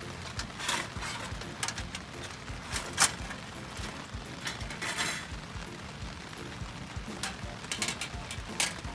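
Metal parts of a portable fire stand clinking and knocking as they are handled and fitted together, with a sharp click about three seconds in.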